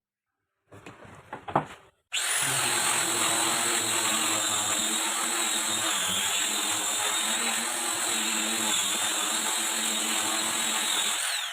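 A homemade scroll saw is switched on about two seconds in and runs steadily with a high motor whine, then winds down near the end. A few light knocks come before it starts.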